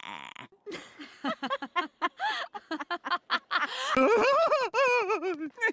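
Cartoon voices laughing in quick, high-pitched bursts, with longer high-pitched vocal sounds near the end.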